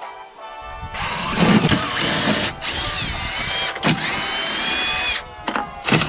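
Power drill with a socket on an extension driving bolts. It whines in three runs of a second or so, its pitch rising and falling as the trigger is squeezed and let off, then gives a couple of short bursts near the end.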